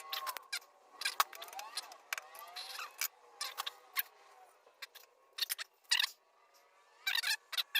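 Hand hammer striking hot steel on an anvil in irregular blows, some leaving a metallic ring, with a quick run of strikes near the end. The smith is texturing the corkscrew's bar.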